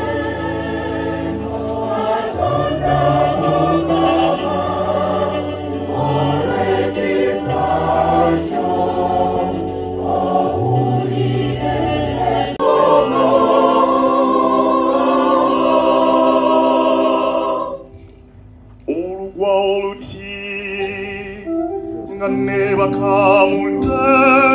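Church choir singing a hymn over low held bass notes, with a long sustained chord midway; the singing drops away for about a second about three-quarters through, then resumes.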